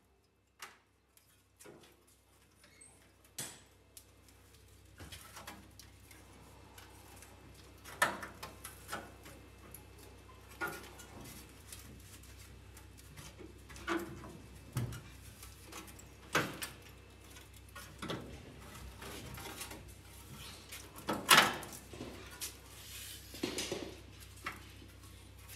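Irregular light knocks, taps and scrapes of a loose cut sheet-metal fender section being handled and test-fitted against a Porsche 914's rusted steel body, the sharpest knocks about 8 and 21 seconds in, over a faint low hum.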